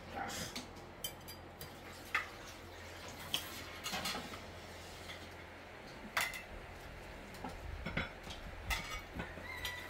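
Cutlery and plates clinking as food is served out: a dozen or so light, irregular clinks and taps.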